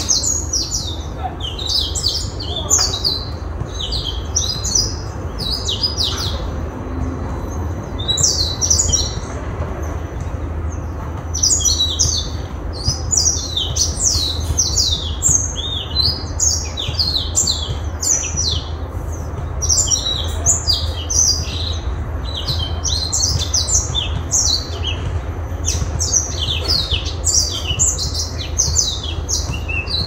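A small caged songbird singing a fast, high-pitched twittering song in long runs with short pauses, over a steady low hum.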